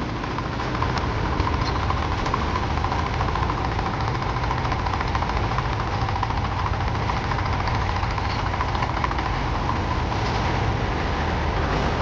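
Vintage tractor engine running steadily with a low, even beat.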